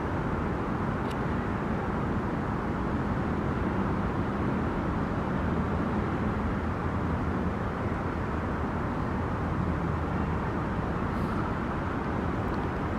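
Steady, even rumble of city traffic, with no single event standing out.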